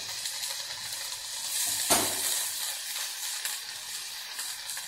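Chopped onion, ginger and garlic sizzling in hot oil in a pan over a full flame, tossed and turned with tongs. One sharp knock about two seconds in.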